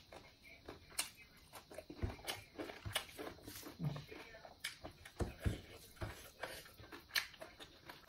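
A person eating rice and chicken curry with her hand: chewing and mouth smacks, with fingers squelching and mixing food on the plate, heard as a string of irregular soft clicks and a few low thumps.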